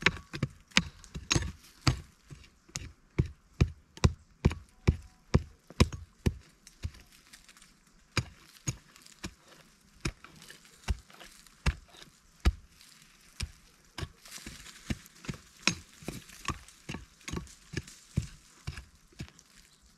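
Short-handled pick striking and digging into soil, a steady run of knocks at about two a second, then a brief pause about seven seconds in and slower, uneven strokes after.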